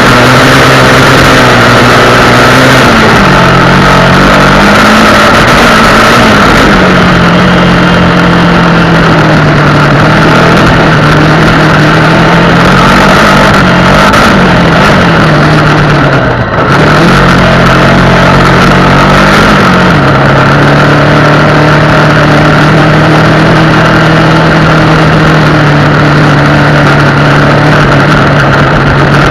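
Honda XR250 Tornado single-cylinder four-stroke motorcycle engine running under way, its pitch rising and falling with the throttle for the first twenty seconds, then holding steady. A loud rushing noise runs under it, and there is a brief drop about sixteen seconds in.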